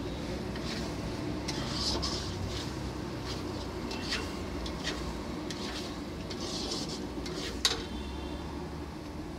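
Metal ladle scraping and knocking against a steel kadai as thick frying masala paste is stirred, over a steady low hum. One sharp clank near the end is the loudest sound.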